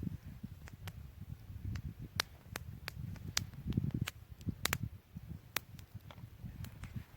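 Campfire of sticks crackling: irregular sharp pops and snaps over a low rumble.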